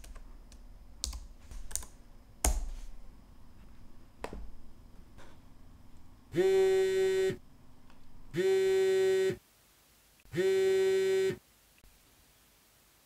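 Computer keyboard typing and clicking, then a smartphone ringtone for an incoming call: three steady, one-second rings about two seconds apart.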